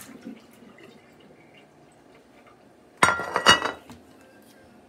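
Glass dishes clinking and clattering for just under a second, starting about three seconds in, with a bright ringing after the knocks. Before it there are only faint small handling sounds.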